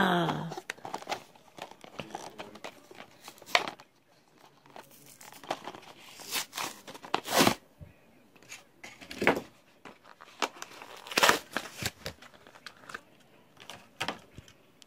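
Clear plastic blister packaging of a toy train engine being crinkled and torn open by hand. It comes as irregular crinkles and rustles, with a few louder snaps of plastic.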